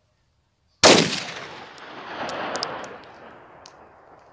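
A single 9mm pistol shot from a Beretta M9, a sharp crack about a second in, followed by a long echo rolling back off the surrounding cliffs and slopes, swelling again a second or so later before dying away.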